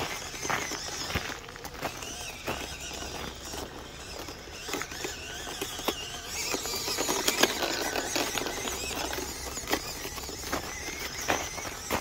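High-pitched whine from the small electric motor and gearbox of a 1:18-scale FMS Toyota FJ Cruiser RC crawler as it drives, with its tyres crunching and crackling through icy snow. The whine is louder from about six to nine seconds in.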